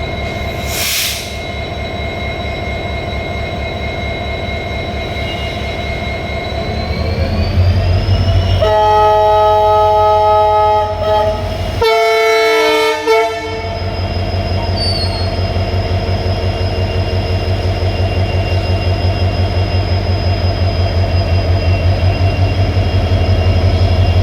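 Diesel locomotive engine running with a steady throb; about seven seconds in its pitch rises as it revs up for departure. The horn then sounds twice, a blast of about two seconds and a shorter one just after, and the engine settles into a louder, even pulsing beat as the train pulls away.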